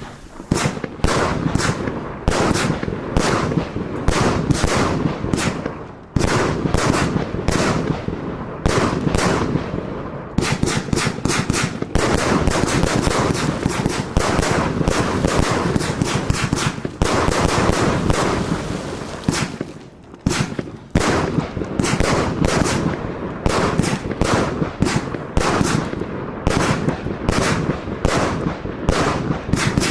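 A consumer F2 compound firework battery firing: a rapid, nearly continuous run of shots and bursts, many a second. It eases briefly about six and twenty seconds in.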